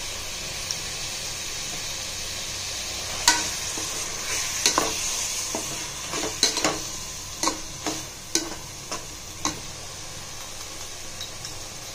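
Oyster mushrooms and spice powders frying in a pan with a steady sizzle while they are stirred. The stirring utensil knocks sharply against the pan a dozen or so times between about three and nine and a half seconds in.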